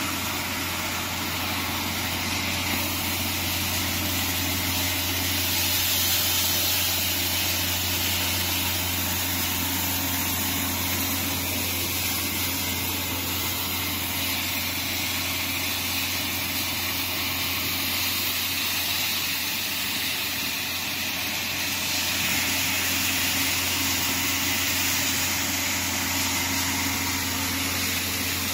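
Horizontal centrifugal plastic dryer running steadily while drying crushed, washed PET bottle flakes: a constant low hum under an even hiss.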